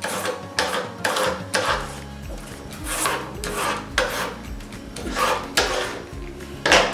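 A Y-shaped vegetable peeler shaving white asparagus into thin ribbons on a plastic cutting board: a quick run of short scraping strokes, about two a second.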